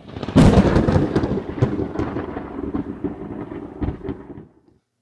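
A thunderclap that breaks suddenly, crackling, then rumbles and fades away over about four seconds.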